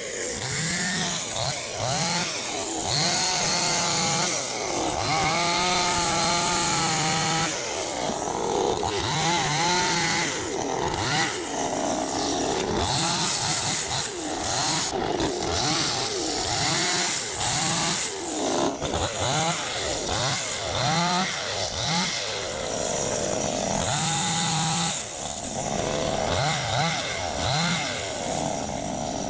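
Chainsaw running steadily while cutting tree wood, its engine pitch rising and falling again and again as it works through the cut.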